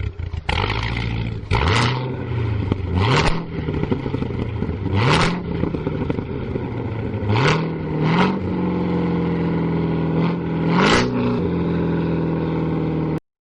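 Car engine accelerating through the gears, its pitch climbing and falling back at each shift, with short hissing bursts at several of the shifts. The engine settles to a steadier pitch in the last few seconds, then cuts off suddenly near the end.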